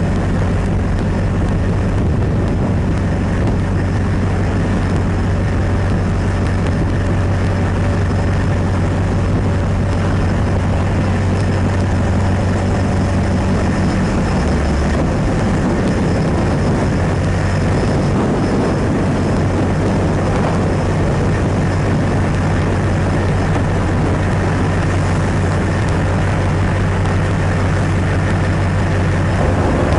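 Ship's engine machinery running with a steady low drone and an even rushing noise over it.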